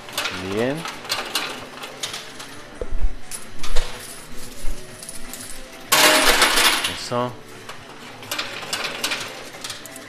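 Coins clicking and clinking as they drop in a coin pusher machine, with a dense burst of clattering coins lasting about a second, six seconds in.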